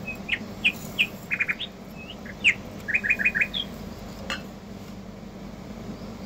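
Small birds chirping in a quick run of short calls, some in rapid groups of three or four, over the first three and a half seconds. A steady low hum runs underneath, and a single click comes a little past four seconds in.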